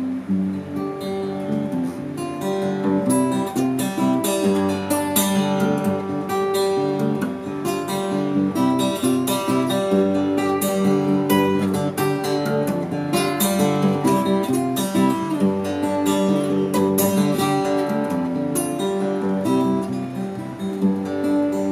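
Solo steel-string acoustic guitar playing an instrumental tune, with a quick, continuous run of plucked notes.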